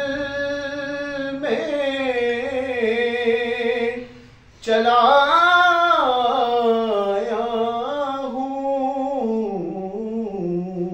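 A man singing an Urdu naat unaccompanied, in long drawn-out, ornamented lines that bend in pitch, with a short breath pause about four seconds in.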